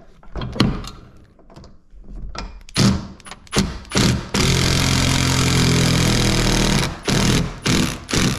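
Milwaukee M18 Fuel cordless impact driver driving a long structural wood screw through a steel bracket into the wall framing. It gives a few short bursts, then a steady run of about two and a half seconds, then short bursts near the end as the screw is snugged up.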